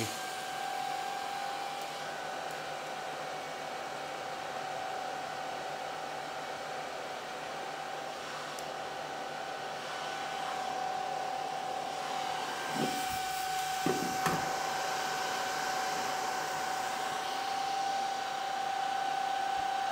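Kaleido M6 coffee roaster's fan running steadily with a constant whine, drawing air through a cooling tray of freshly dropped roasted beans. A few light knocks come about 13 and 14 seconds in.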